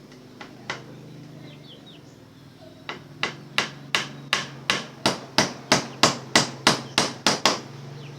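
Hammering: two single blows, then a steady run of about fourteen evenly spaced blows at roughly three a second that stops shortly before the end.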